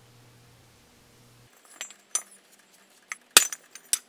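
Cast aluminium intake manifold pieces being handled and set down, clinking and knocking against each other: a handful of separate light metallic clinks, with one sharper clack about three and a half seconds in.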